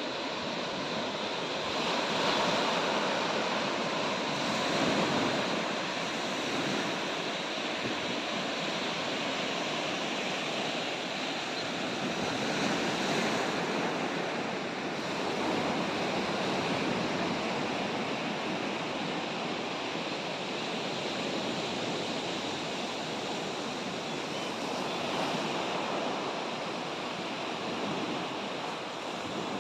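Steady rushing of water, swelling gently every few seconds.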